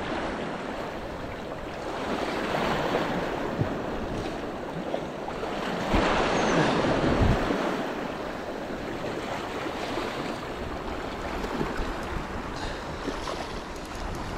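Sea waves washing over shoreline rocks, swelling louder a couple of times, with wind buffeting the microphone.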